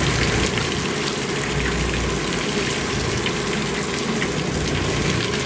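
A boat's engine idling steadily, with water washing along the hull.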